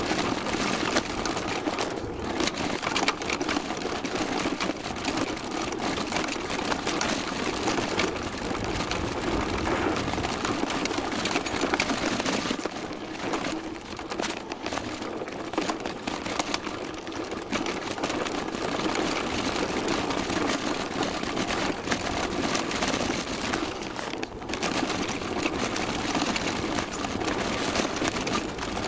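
Downhill mountain bike running fast over a rough dirt and rock trail: continuous rattling and clatter of the bike with tyre noise and many small knocks, picked up close by a camera mounted on the bike.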